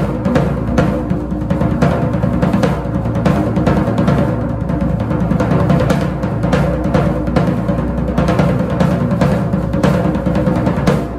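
Tama Royalstar 18-inch floor tom played with wooden sticks in a fast, continuous run of strokes, its low, deep body ringing on between hits. The playing stops at the very end and the drum rings out. Recorded on an iPhone microphone.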